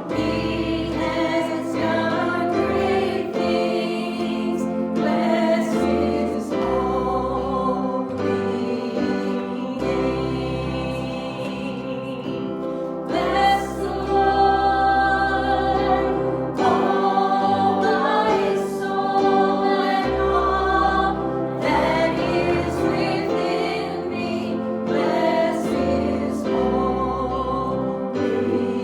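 Congregational worship singing: many voices singing a hymn together, with instrumental accompaniment carrying a steady bass line.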